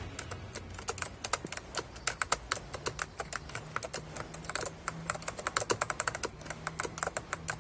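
Fast, irregular typing on a computer keyboard: a steady patter of key clicks, with a faint steady low hum underneath.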